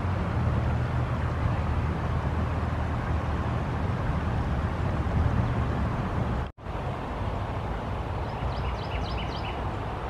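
Shallow river water running steadily over a pebbly bed, with a low rumble under it in the first part. The sound drops out for an instant about six and a half seconds in, then the flow continues more lightly, with a few short high chirps near the end.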